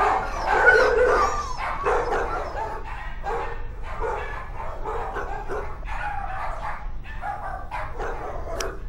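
Several dogs barking and yipping in a kennel block, a steady run of short overlapping barks, louder in the first couple of seconds.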